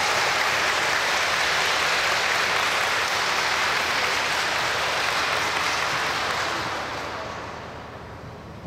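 Crowd applauding, dying away over the last couple of seconds.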